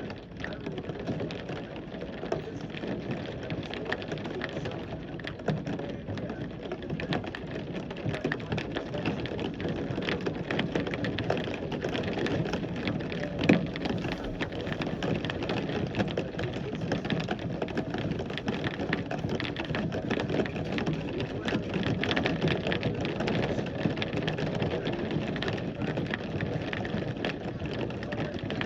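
Heavy rain falling steadily, with a dense patter of drops hitting close by and one sharper tap about halfway through.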